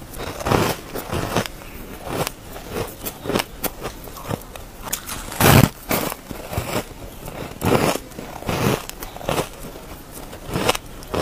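Shaved ice blocks crunching as they are bitten and chewed: a run of irregular, crisp crunches, the loudest about halfway through.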